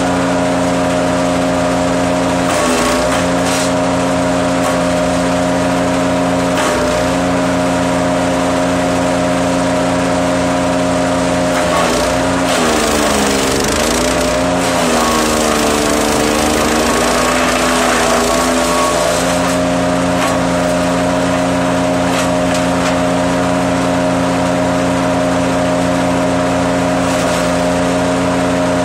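Wood chipper running steadily, its motor pitch sagging briefly under load about two seconds in and again for several seconds mid-way as wood is fed through, with crackling of branches being chipped.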